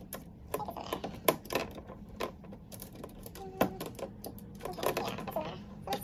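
Irregular clicks and light knocks of a hand screwdriver and screws against the hard plastic base panel of a portable washing machine as the panel is screwed on.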